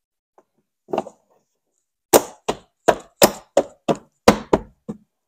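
A hand knocking a plastic A-pillar trim panel to seat it into its clips. There is one knock about a second in, then about nine quick, sharp knocks over about three seconds.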